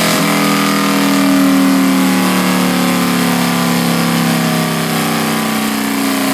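2009 Yamaha Raider's air-cooled V-twin on a chassis dyno, running at a steady speed that slowly falls as it winds down after a pull.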